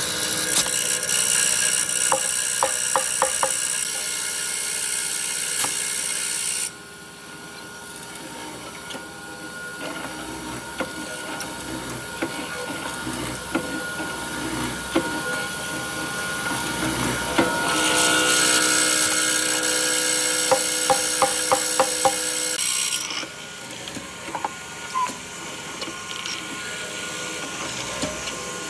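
Handheld power tool working wood. It runs until about seven seconds in, starts again around eighteen seconds and stops about five seconds later, with quieter scraping and handling noise between the two runs.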